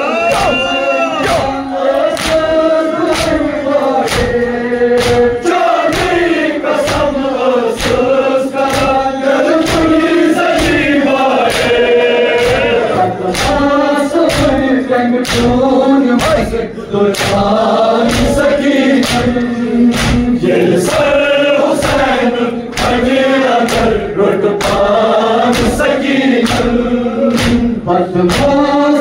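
A crowd of men chanting a Kashmiri noha together, with the slaps of matam chest-beating keeping a steady beat of about one and a half strokes a second.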